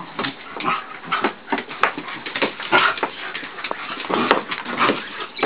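Border retriever dogs play-fighting, making a rapid, irregular run of short vocal noises, with a couple of sharp clicks among them.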